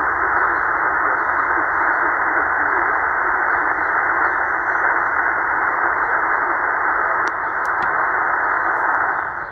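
Sihuadon D-808 shortwave receiver's speaker playing steady static and hiss from the 20-metre amateur band in upper sideband, with no clear station. The narrow 2.2 kHz filter cuts the sound off above about 2 kHz, giving it a thin, muffled tone.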